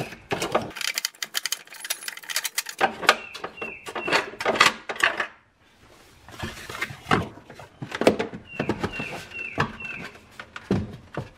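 Hard plastic knocks, clatter and scraping as a factory Bose subwoofer enclosure is worked loose and lifted out of its plastic well in the cargo floor. A few short, high, falling squeaks come about three seconds in and again near the end.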